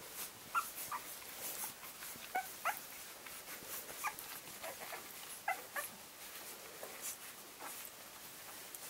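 Litter of 11-day-old English Springer Spaniel puppies squeaking and whimpering while nursing: short, high squeaks every second or so, with soft clicks between them.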